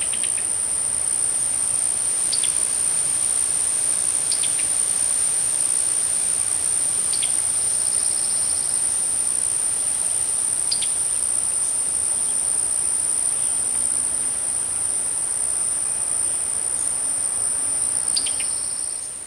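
A steady, high-pitched insect chorus drones without a break. A few short, sharp bird chirps are scattered through it, several seconds apart.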